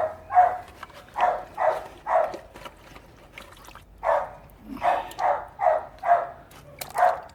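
A dog barking repeatedly in quick runs of short barks, about two a second, with a pause of about two seconds in the middle.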